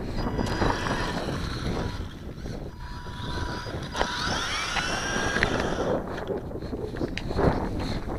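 Wind buffeting the microphone, with the thin high whine of a small electric motor rising and falling in pitch a few times, most clearly about four to five seconds in.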